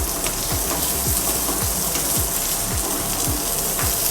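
Oil sizzling steadily in a pan as dried red chillies, ginger and shallots fry.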